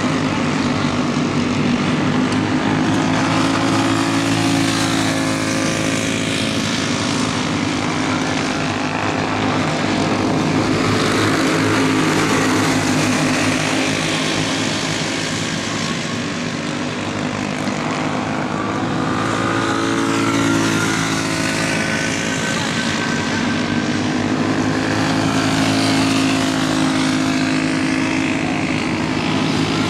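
Racing go-kart engines running on the track, a steady loud drone of several engines whose pitch rises and falls as the karts accelerate and slow through the corners.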